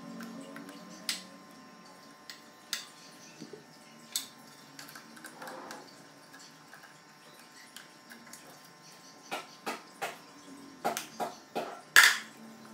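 Sharp clicks and knocks of hard plastic and metal as a motorcycle battery that is too tall for its compartment is worked out of the battery box of a Harley-Davidson Street 750. The knocks come scattered at first, then crowd together in the last few seconds, with the loudest near the end.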